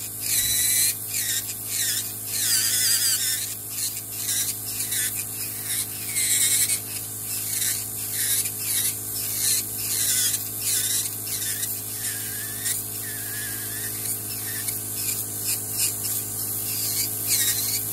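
Podiatry electric nail drill with a small burr grinding down a thick fungal toenail: a steady motor hum with grinding that comes and goes in short passes, its pitch dipping briefly each time the burr bears on the nail.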